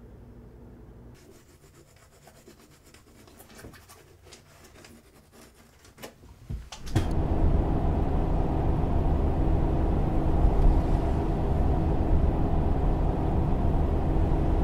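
Quiet room tone with a few faint clicks, then about seven seconds in a steady, loud running sound of a car on the road begins: a Nissan Pathfinder SUV driving along a street, engine and tyre rumble with a low drone.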